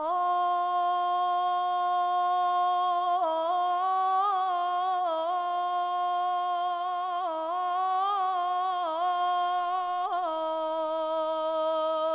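A female flamenco singer holds one long note, steady at first, then with small ornamental turns and wavers in pitch from about three seconds in.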